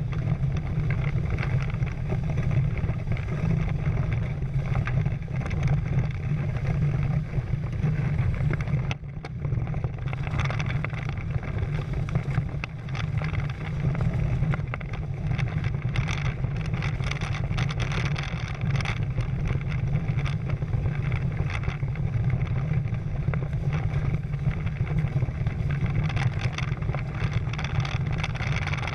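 Wind buffeting the microphone as a low, steady rumble, over the rush and splash of water along a Prindle 16 catamaran's hulls under sail, easing briefly about nine seconds in.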